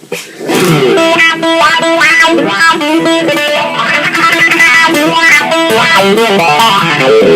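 Electric guitar played through a Dunlop Cry Baby 535Q wah pedal, a busy run of notes whose tone sweeps up and down with the pedal. It starts about half a second in.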